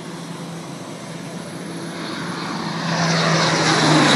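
Four-engine turboprop transport aircraft on a low flypast, its propeller and engine drone growing steadily louder as it comes overhead, the tone starting to fall in pitch at the very end as it passes.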